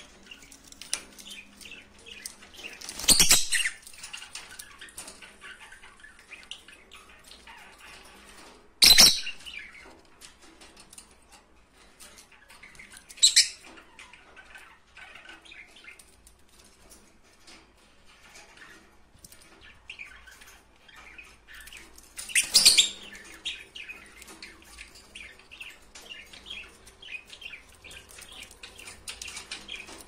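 Pet lovebirds in a cage chirping and chattering softly, broken by four loud, sharp bursts of wing-flapping or shrill calls spread through the stretch.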